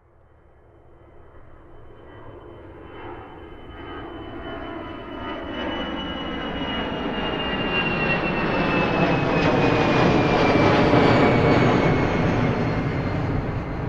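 Airplane taking off: the engine noise builds steadily from faint to a loud peak about ten seconds in, then starts to ease off. A high whine over it slowly falls in pitch.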